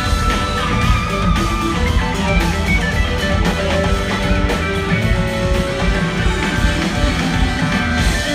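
Jam-rock band playing live: electric guitar holding long notes over bass and drums, steady and loud, recorded from the crowd.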